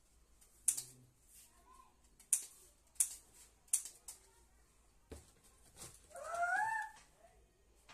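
A few sharp clicks and rattles of small items being picked through in a plastic tub, then, about six seconds in, a short, louder whining call that rises and falls.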